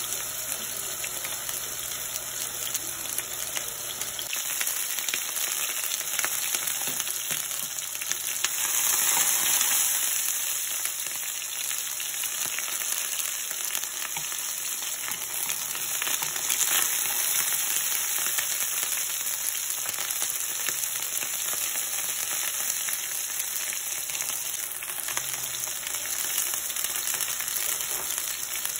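Plant-based ground-meat kababs sizzling steadily as they fry in hot oil in a nonstick pan, briefly louder about eight seconds in. A spoon and spatula stir and scrape in the pan now and then.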